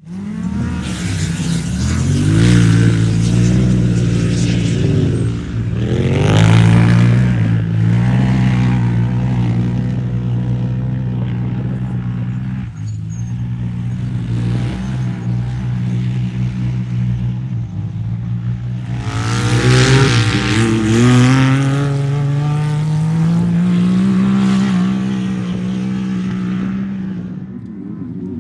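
Off-road race vehicle engine running hard without a break, its pitch climbing under acceleration about 6 seconds in and again around 19 seconds, over a steady rush of tyre and wind noise.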